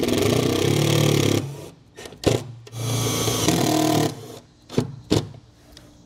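Cordless drill driving self-tapping screws into an aluminum truck bed through a 5/16 socket: two runs of steady motor whine of about a second and a half each, the second starting nearly three seconds in. A few sharp clicks fall between and after the runs.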